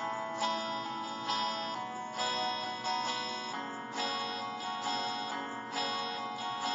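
Background music: guitar chords plucked or strummed in a steady rhythm, a new chord about every second.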